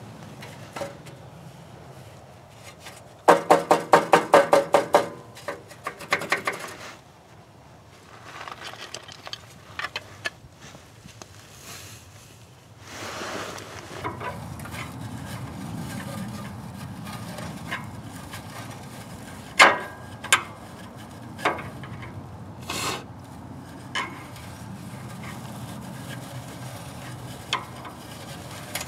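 Hands working at a car's exhaust pipe and heat shield. About three seconds in comes a loud burst of rapid metallic rattling lasting a couple of seconds. After that there is quieter rubbing and scraping with a few sharp clinks, over a low steady hum in the second half.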